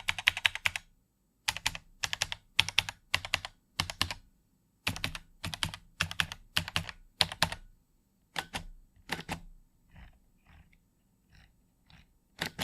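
Typing on a LeleLab Y2K 76 mechanical keyboard with tactile switches and an open, caseless FR4-plate build. Quick flurries of key clicks come about every half second. From about eight seconds in the strokes turn sparser and fainter, and one louder flurry comes near the end.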